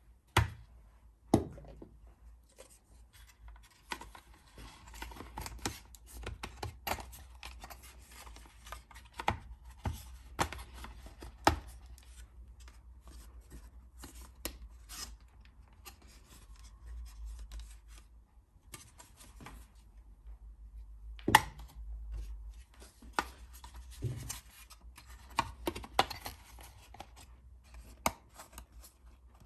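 Close handling of a plastic wing mirror indicator unit and its small screws: irregular clicks, taps and knocks of hard plastic with scratching and rubbing between them, a few sharp knocks standing out near the start and about two thirds of the way through.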